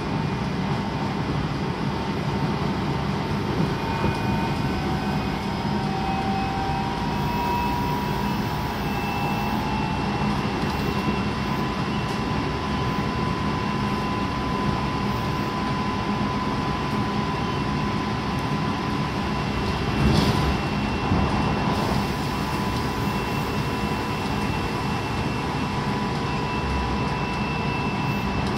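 Tobu 9050 series electric train running, heard from inside the passenger car: a steady rumble of wheels on rail with thin steady whines from its Toyo Denki GTO-thyristor inverter traction drive. A louder knock comes about twenty seconds in.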